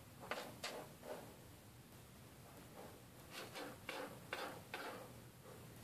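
A cat's paws scratching and raking scoopable clay litter in a plastic litter box to bury her waste: a few quick scrapes, then a faster run of them about three seconds in.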